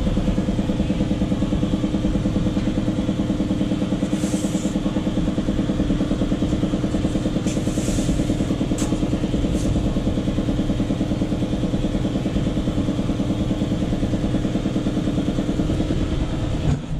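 An engine-driven machine running steadily with a fast, even pulse, and a few light clinks about four and eight seconds in; it cuts off suddenly near the end.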